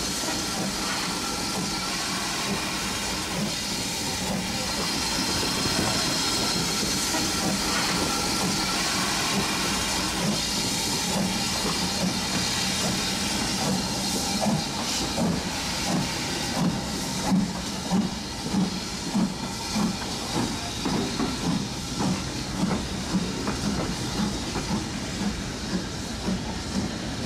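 BR Standard Class 4 2-6-0 steam locomotive hissing steam at a standstill. About halfway through, a regular soft beat of roughly two a second sets in as the engine moves off.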